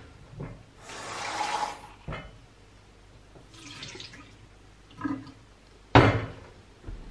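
Water from a kitchen tap running briefly into a stainless-steel sink as a milk frother jug is rinsed, with a shorter splash about four seconds in. A sharp knock near six seconds, the loudest sound, comes as the metal frother jug is set down on the hob.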